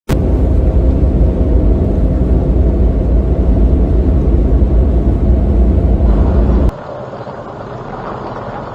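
Loud blizzard wind rumbling and buffeting on the microphone, then cut off abruptly near the end by a switch to a quieter, steady rushing noise.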